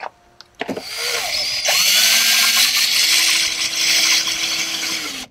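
Cordless drill boring into a plastic kayak deck. The motor whine rises as it spins up about a second in, then runs steadily and stops just before the end.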